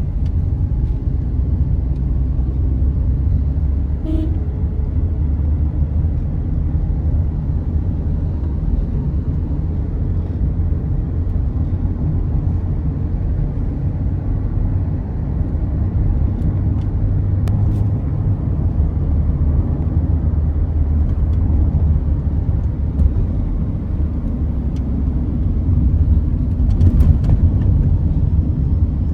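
Toyota Corolla GLi car running, a steady low rumble with no marked change in pitch.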